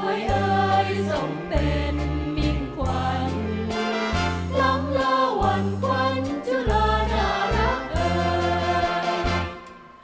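Mixed choir of men and women singing a Thai song together over musical accompaniment with a rhythmic bass line. The music dies away near the end.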